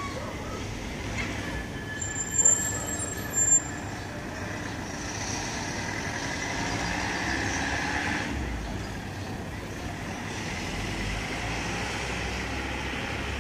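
Steady city traffic noise, with two short, loud, high-pitched squeals about a second apart early on.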